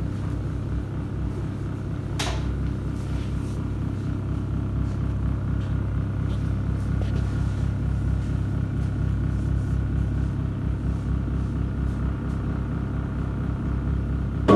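LG Fuzzy Logic 15 kg Turbo Drum top-load washing machine running very noisily, a steady low rumble and hum while the drum turns only slowly, with one sharp click about two seconds in. The repairer traces the noise to a faulty drive motor rather than the gearbox, since it is there from the start.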